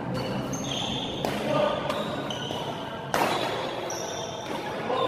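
Badminton rally: the shuttlecock is struck with rackets in sharp hits a couple of seconds apart, and shoes squeak on the court floor between them.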